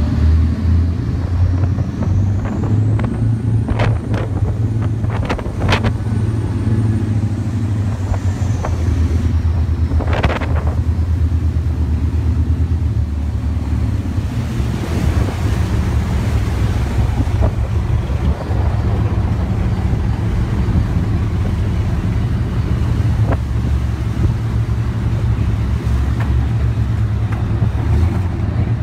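Pilot boat's engines running steadily under way, a deep, constant drone mixed with rushing water and wind on the microphone.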